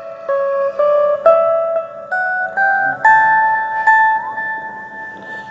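Electric guitar playing a D major scale one picked note at a time, about two notes a second. The run climbs in the second half and ends on a note held for nearly two seconds, with a small slide in it.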